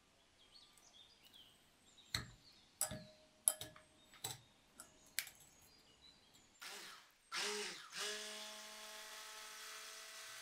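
Electric hand mixer beating eggs and sugar in a glass bowl. First come several sharp clicks and knocks. About seven seconds in, the mixer starts with two brief surges, then runs with a steady whir.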